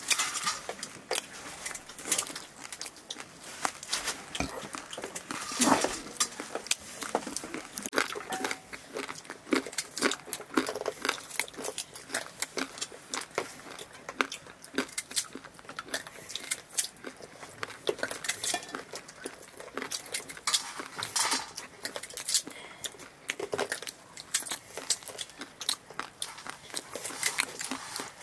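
Irregular light clicks and knocks as red potatoes are cut by hand against a curved sickle blade, the wedges dropping into an aluminium bowl.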